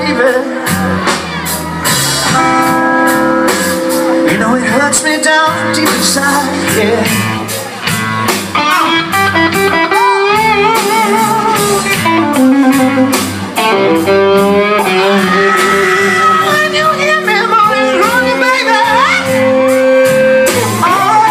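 Live rock band playing blues: electric guitar, bass and drums, with a male singer holding long, wavering notes into a microphone through the PA.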